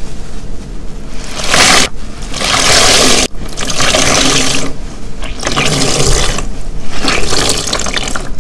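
A soaked, soapy car wash sponge being squeezed by hand, water squelching and pouring out in repeated squeezes. The loudest squeeze comes about two to three seconds in and cuts off sharply.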